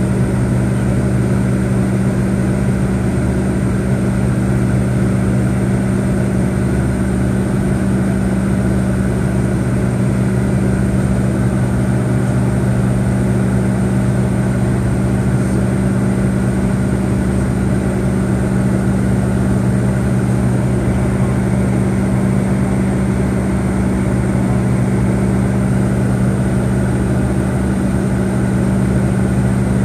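Steady in-cabin drone of a McDonnell Douglas MD-88's rear-mounted Pratt & Whitney JT8D turbofan engines in flight: a constant low hum with a thin high whine above it.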